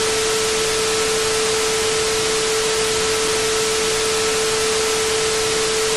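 Steady static hiss, like white noise, with one constant mid-pitched tone held through it at an unchanging level: an edited-in static sound effect.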